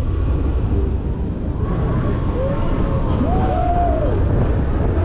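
Zamperla Disk'o Coaster ride in motion: a steady low rumble of the spinning disc running along its track, mixed with wind rushing over the microphone.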